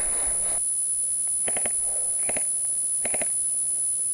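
Airsoft gun firing three short bursts of three or four quick shots each, under a second apart, over a steady high whine.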